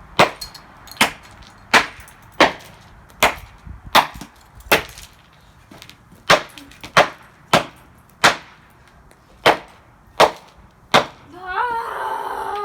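A hammer striking the plastic casing of a Dreamsky DS206 alarm clock radio: about fourteen hard blows, roughly one every three-quarters of a second, with a short break about halfway through. Near the end comes a drawn-out, wavering voice.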